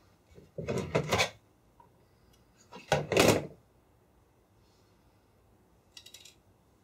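Sewing tools and supplies being handled and set down on a worktable: two short scraping, rattling noises about one second and three seconds in, the second louder, and a faint one near the end.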